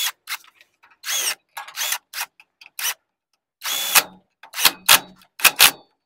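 Irregular metallic clicks, clanks and short scrapes, some ringing briefly, from a socket wrench and long extension bar being worked in the clutch centre of a TVS Victor motorcycle engine.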